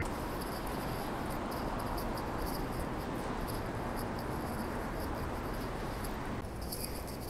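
Street ambience beside a busy road: a steady rush of passing traffic, with faint high chirps repeating over it. The rush thins a little about six and a half seconds in.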